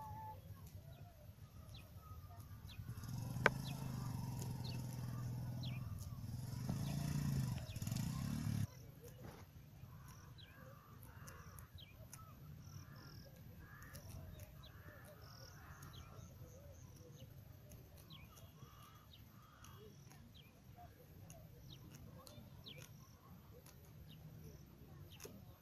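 Sheep grazing in a pasture, with small crisp clicks of grass being cropped and chewed over a low outdoor background. For the first eight seconds or so a louder low rumble sits over it, then cuts off suddenly.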